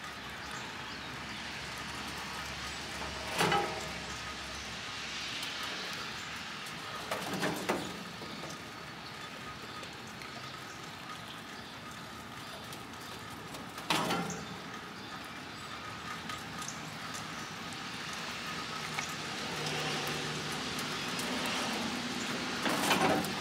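Steady hiss of rain on a wet street, with four short, sharp louder sounds close by: about three and a half, seven and a half and fourteen seconds in, and again near the end.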